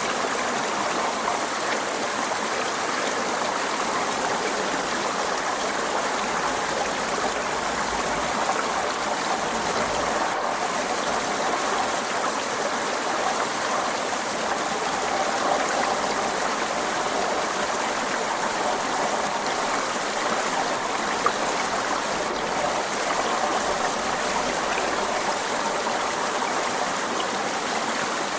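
Forest stream running over rocks: a steady rushing and burbling of flowing water.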